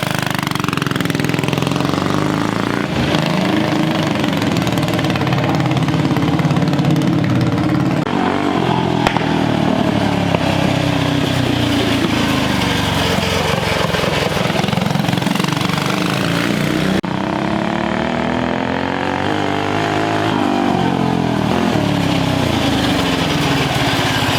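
The Rascal mini bike's 18 hp Tillotson 225 single-cylinder engine revving up and down as the bike is ridden, its pitch rising and falling over and over. The sound changes abruptly about 8 and 17 seconds in.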